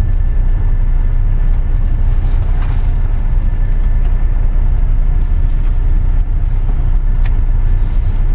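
Steady low rumble of a boat under way, heard inside its cabin: engine and hull noise, with a faint swish of sea water washing over the porthole a few seconds in.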